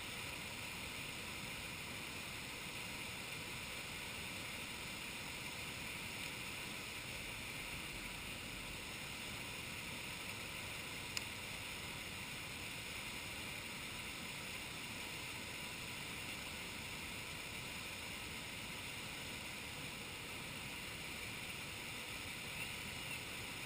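Steady rush of flowing river or waterfall water, with one short click about eleven seconds in.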